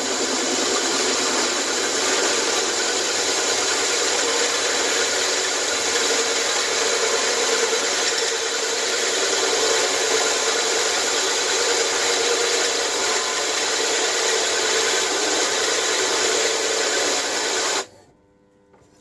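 Bench drill press driving a hole saw into a metal plate: a steady, loud grinding and scraping of the saw's teeth over the motor's running hum. It cuts off suddenly near the end.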